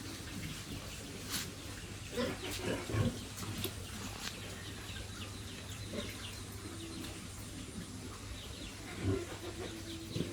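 Farmyard animal sounds: pigs grunting now and then, with short chirps of small birds throughout.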